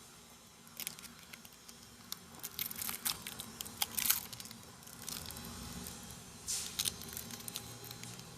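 Phone packaging being handled and opened: irregular bursts of crinkling, tearing and small clicks, with the busiest stretch in the middle and another burst near the end.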